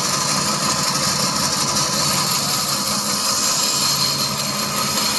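Large vertical band saw running steadily while wood blocks are fed through its blade, a constant mechanical drone with a hissing high-pitched edge.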